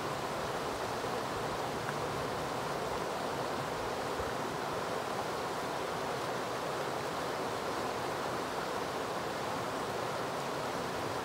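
River water rushing steadily over a shallow rocky riffle: an even, unbroken rushing noise.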